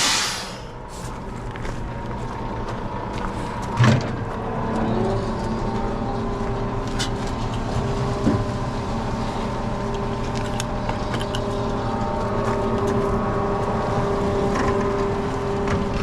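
A truck engine running steadily. It opens with a short burst of hiss, there is a knock about four seconds in, and the engine note settles slightly higher soon after.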